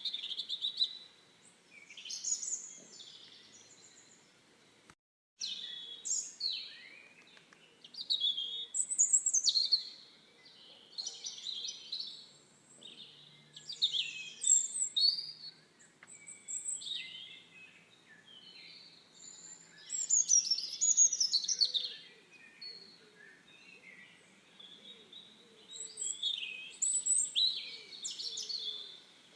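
Songbirds chirping and singing in quick, high, twittering phrases, several calls overlapping, with a brief total dropout about five seconds in.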